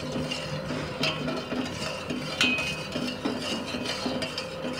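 Metal spoon stirring sugar into water in a metal pot, with repeated scrapes and clinks against the bottom and sides as the sugar is dissolved into syrup.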